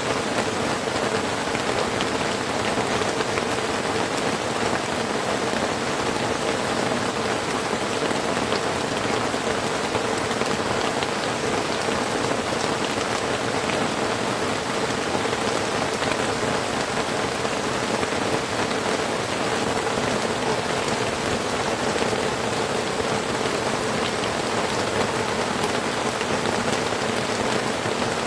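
Heavy rain falling steadily, an unbroken hiss of drops with no pauses or changes.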